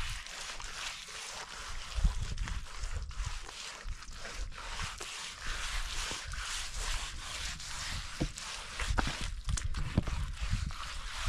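Wet cow-dung and mud plaster being smeared over an earthen floor by hand, a soft steady rubbing and swishing, with low bumps about two seconds in and again near the end.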